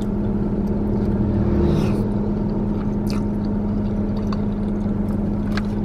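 A car's engine idling, heard inside the cabin as a steady low hum that swells briefly about a second in. A few faint clicks over it.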